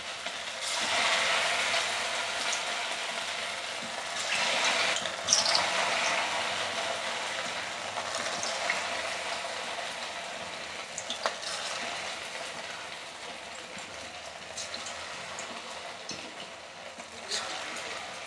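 Sabudana and potato pakoda batter sizzling in hot oil on a low flame. The sizzle grows louder about a second in and again around four to five seconds in, then slowly settles, with occasional small pops.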